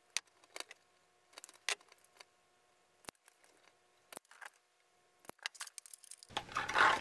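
Scattered small metallic clicks and rattles from handling a wire crimping tool and crimp connectors, with louder handling noise building near the end.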